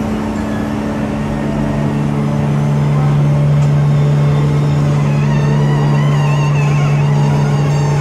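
Steady machinery hum in a plywood mill: a strong low drone with a second tone above it over a mechanical haze. Faint higher whines join about five seconds in.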